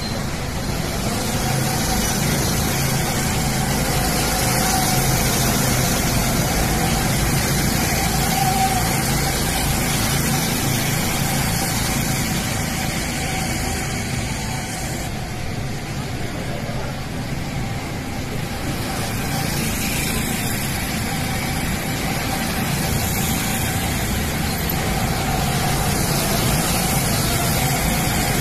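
Go-karts running around the track: a steady motor sound with a faint steady hum that swells and fades a little as karts pass.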